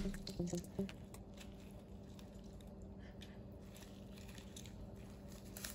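Faint wet squishing and a few light clicks as a gloved hand squeezes a lemon slice over raw marinated chicken in a glass bowl, over a faint steady hum.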